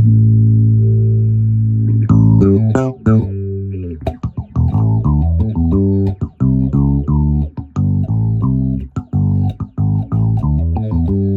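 Electric bass played through a Valeton Dapper Bass multi-effects pedal and a Fender Rumble 40 bass amp: one held low note, then from about two seconds in a quick line of plucked notes, several a second, ending on another held note.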